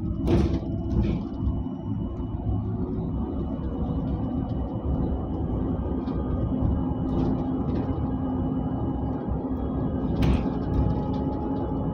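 Inside a moving public bus: steady engine and road rumble with a constant hum. Brief rattles sound just after the start and again about ten seconds in.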